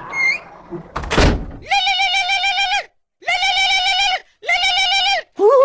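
A single thump, like a door banging shut, then three drawn-out, wavering high-pitched tones, each about a second long with short gaps between them.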